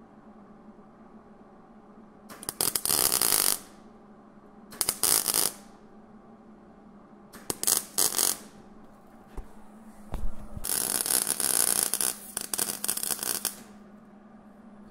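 MIG welder arc crackling in five short runs as tack welds go onto a sheet-steel floor pan patch; the last run lasts about three seconds.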